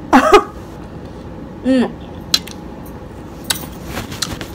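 Two short vocal hums, then scattered sharp clicks and taps over a faint hiss: close-miked noise from eating fruit and from a hand moving right up against the camera.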